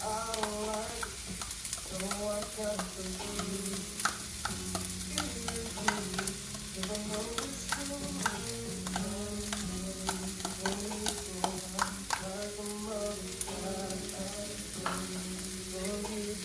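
Fried rice sizzling in a hot pan while a utensil stirs and scrapes it, with frequent sharp clicks of the utensil against the pan over a steady sizzle.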